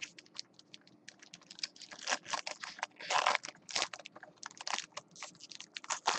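A quick run of light, irregular clicks, with short rustling bursts about two and three seconds in.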